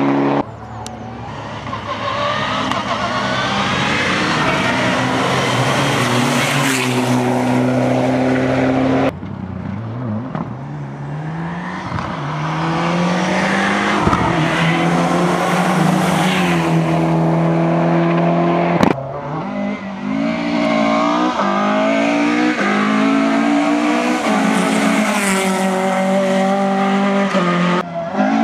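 Rally cars driven flat out on a special stage, engines revving hard, climbing in pitch and dropping back at each gear change as they pass. Several separate car passes are cut together, each change abrupt.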